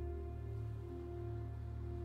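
Calm background music: slow sustained notes held over a low steady drone.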